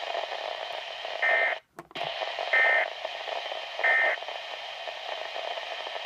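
Three short bursts of Specific Area Message Encoding (SAME) warbling data tones from a weather radio broadcast, about 1.3 seconds apart, over steady radio hiss. The bursts are short, the length of the end-of-message code. Just before the first burst ends, the signal drops out for a moment.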